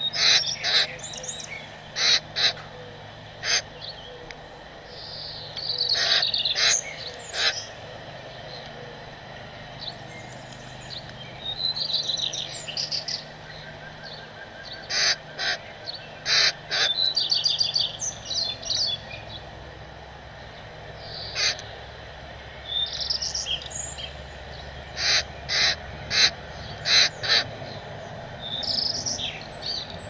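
Fledgling common grackle begging for food with runs of rapid, squeaky calls. Short sharp clicks come singly and in quick pairs throughout.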